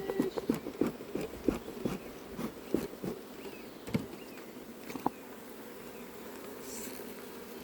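Honeybees buzzing in a steady hum around an opened hive. A quick run of clicks and knocks sounds over the first few seconds, then dies away, leaving the buzzing.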